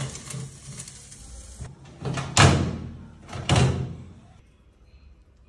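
Metal baking tray scraping onto the oven rack, then the old cooker's metal oven door shut with a bang about two and a half seconds in, followed by a second knock about a second later.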